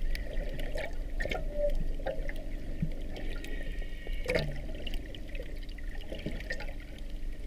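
Underwater sound picked up by a submerged camera: muffled water movement with scattered sharp clicks and taps over a low rumble.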